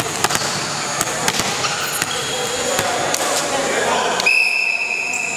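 Gym hall chatter with sharp knocks of a volleyball bouncing on the wooden court floor. About four seconds in, a long steady whistle blast, held for well over a second: a referee's whistle.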